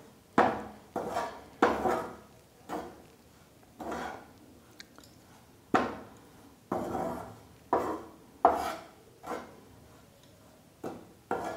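Spatula scraping and stirring wheat flour roasting in ghee in a pan, in about a dozen separate strokes at roughly one a second.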